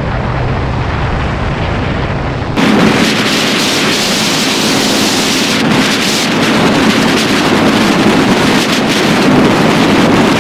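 Wind rushing over the camera microphone of a motor scooter riding at speed, with a low engine and road rumble underneath. About two and a half seconds in, the sound suddenly jumps louder and hissier, and the wind rush takes over.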